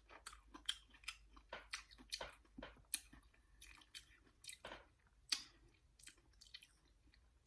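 A person chewing Kool-Aid-coated kiwi pieces: faint, irregular crunches and wet mouth clicks.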